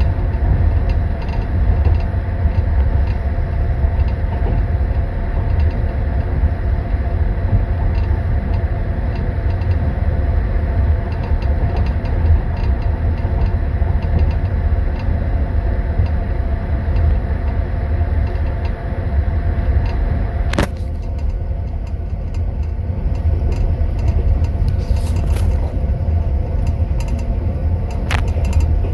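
Passenger train running, heard inside a sleeper compartment: a steady heavy rumble with faint clatter. Twice in the last third, a teaspoon clinks sharply against a tea glass in its holder.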